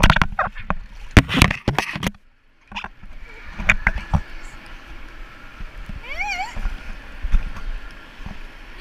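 Water splashing and sloshing with knocks from a GoPro camera handled in and around an indoor swimming pool, echoing in the hall, with a brief wavering high-pitched sound about six seconds in.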